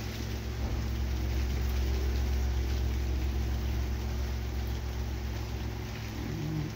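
Steady rain falling, with wind rumbling on the microphone.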